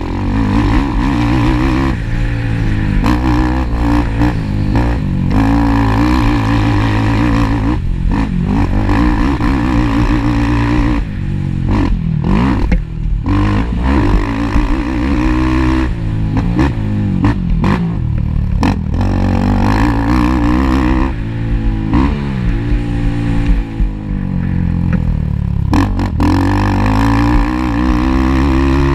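Racing ATV engine revving hard, its pitch climbing and dropping again and again as the throttle is opened and shut, with a few brief drops in the engine note along the way.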